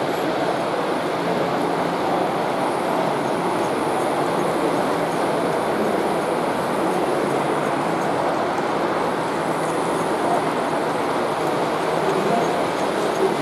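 Model train running along layout track: a steady rumble of wheels and motor from the locomotive and its wagons, over even background noise.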